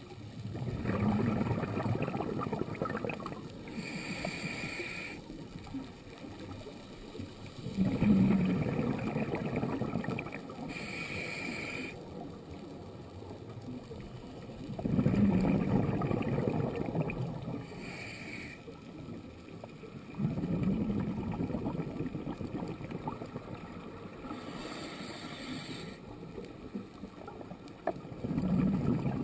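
Scuba diver breathing through a regulator underwater: a short hissing inhale, then a longer burst of bubbling exhaust, repeating about every six to seven seconds.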